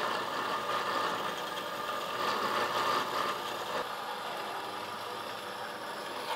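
Vertical bandsaw running, its blade cutting through a cast copper runner to free the soft-jaw castings. The steady cutting noise quietens about four seconds in.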